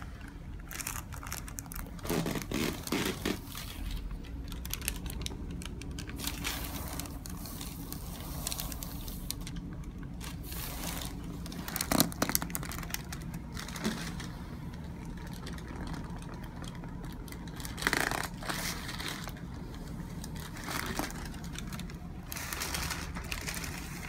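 Soft rustling and rubbing of a chiropractor's hands against a patient's neck, skin and clothing during hands-on neck work on a treatment table, with one sharp click about halfway through.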